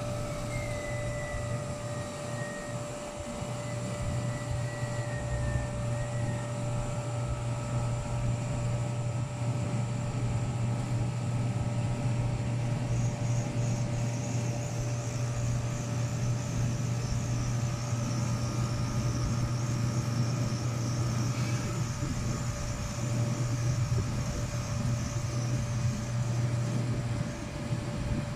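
A steady low machine drone, with a faint steady whine above it.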